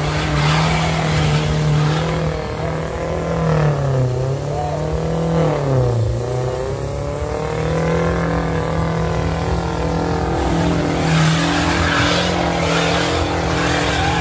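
Off-road 4x4 SUV's engine held at high revs under load as it climbs a muddy, rocky slope; the revs sag twice in the middle as it labours over the rocks, then pick up again and run steady.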